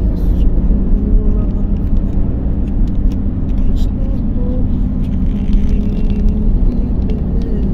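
Steady low rumble of road and engine noise heard from inside the cabin of a car cruising along an expressway.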